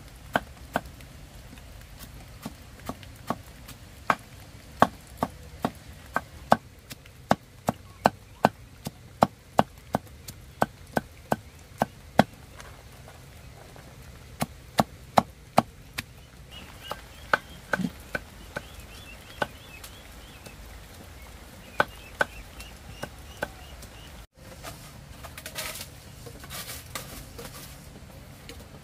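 A cleaver chopping through a heap of shredded plant stalks onto a wooden board: sharp chops about twice a second, thinning out about halfway through. After a cut near the end, a rustling noise as the hearth wood fire is tended.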